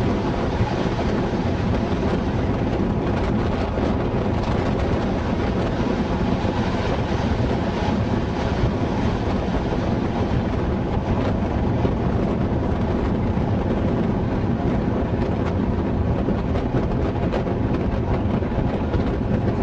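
Slam-door electric train running at speed, heard from an open carriage window: a steady noise of wheels on rail, with wind noise on the microphone.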